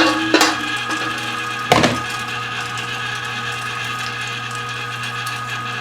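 Cabela's Carnivore 3/4 HP electric meat grinder running steadily while grinding venison, a constant motor hum and whine. Two short knocks sound about half a second and about two seconds in.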